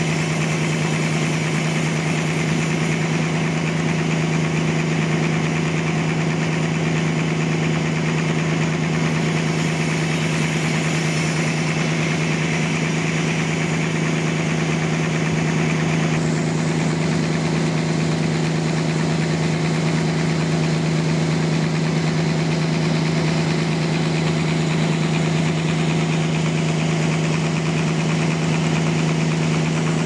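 Band sawmill running steadily as its blade saws through a trembesi (rain tree) log, over the constant low drone of the machine's power unit. The higher sawing noise changes about halfway through.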